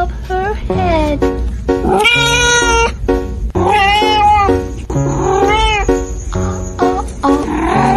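A cat meowing several times, with drawn-out calls that bend in pitch, over background music.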